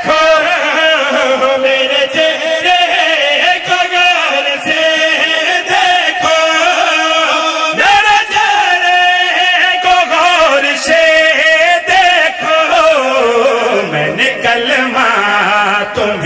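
Several men chanting a devotional qaseeda together into microphones, in long held melodic lines. The melody drops lower over the last few seconds.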